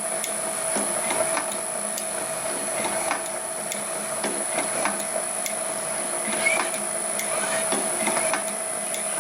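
Motor-driven can crusher running, with a steady whine and a regular click about every 0.6 seconds as its mechanism cycles and works the can gate limit switch.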